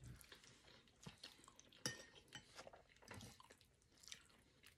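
Faint, scattered clinks and scrapes of metal forks against ceramic plates, one clink about two seconds in ringing briefly, with quiet chewing.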